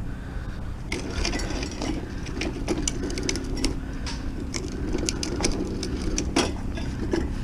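Van engine running steadily, with irregular sharp clicks and rattles over it.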